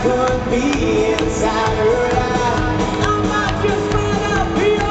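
Live rock band playing a country-style arrangement, with a man singing lead over acoustic and electric guitars and drums, recorded from the audience.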